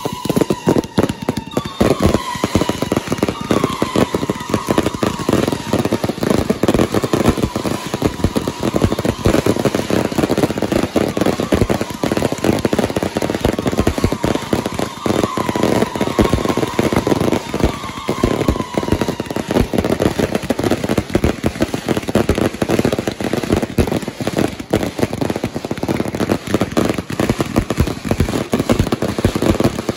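Firework cakes firing: a dense, continuous crackle of many small rapid bangs, with several short falling whistles in the first two-thirds.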